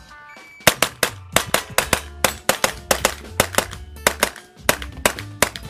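A shot timer beeps, then an AR-style rifle fires rapid strings of shots, several a second, in a timed run at multiple targets. Background music plays underneath.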